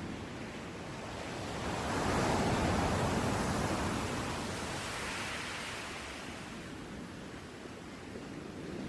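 Surf washing ashore: a rushing noise that swells about two seconds in and again around five seconds in, then eases off.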